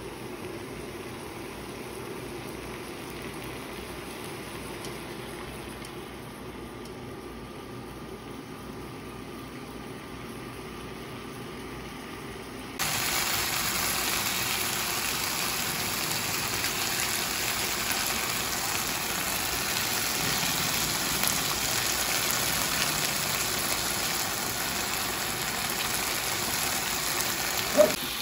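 Marinated chicken dakgalbi sizzling in a frying pan: a steady frying hiss that gets abruptly louder about halfway through and then holds steady. There is a sharp click near the end.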